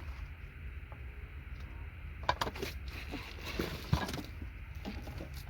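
Small surface-mount components being knocked off a circuit board: a cluster of sharp little clicks and light rattles starting about two seconds in and lasting about two seconds, then one more click, over a low steady hum.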